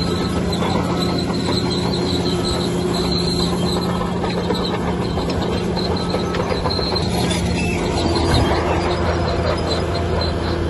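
Bulldozer's diesel engine running steadily under load, with a high metallic squeal from its steel tracks coming and going.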